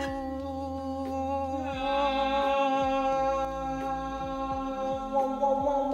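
A sustained sung 'aah' chord like a choir, held on steady pitches and swelling brighter about two seconds in.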